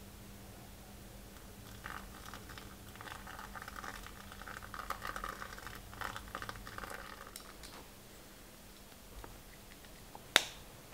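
Faint rustling and scratching of small objects being handled, from about two seconds in until past seven seconds, with a single sharp click near the end, over a low steady hum.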